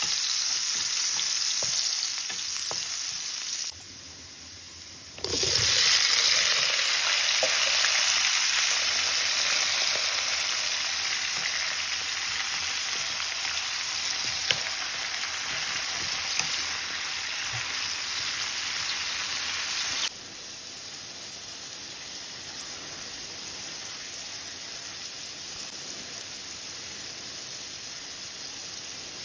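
Onions frying in hot oil in a pan, a steady sizzle stirred with a wooden spatula. About five seconds in, the sizzle jumps suddenly louder as eggplant pieces go into the oil, then eases off slowly. It drops to a quieter steady sizzle a little before the end, with a few light spatula ticks.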